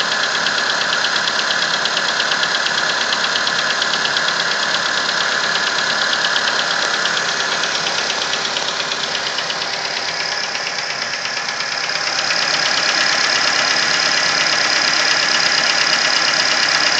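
Nissan Versa's four-cylinder engine running with a fast, steady tap, which the owner places at cylinder number 3. The tap is a cold-engine noise that goes away once the engine warms up. The engine grows a little louder in the last few seconds.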